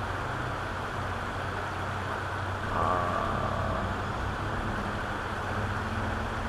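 Shallow river water running over a rocky riffle: a steady rushing noise, swelling slightly about three seconds in.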